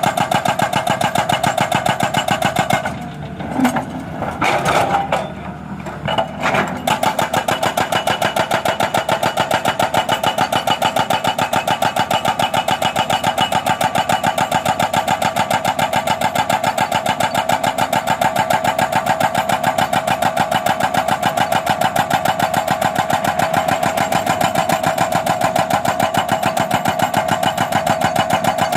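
Excavator's hydraulic breaker hammer pounding a road surface in rapid, even blows with a ringing metallic tone. It stops for a few seconds about three seconds in, with some irregular knocking, then resumes hammering steadily.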